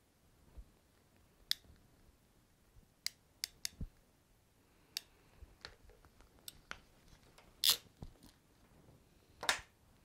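Scattered sharp clicks and snaps of a ratcheting crimp tool closing crimp butt connectors onto wire ends, along with small handling noises from the wires; the loudest snaps come in the last few seconds.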